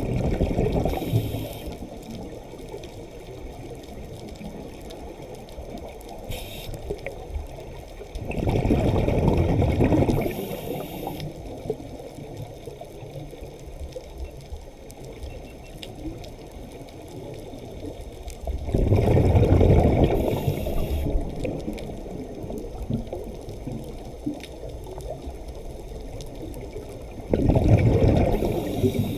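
Scuba diver's exhaled regulator bubbles rushing past the underwater camera, four bursts of about two seconds each, roughly every nine seconds, with a low steady water hiss between them.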